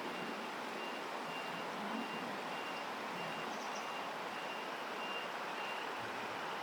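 Steady rush of flowing water, with a faint high electronic beep repeating evenly about three times every two seconds and stopping near the end.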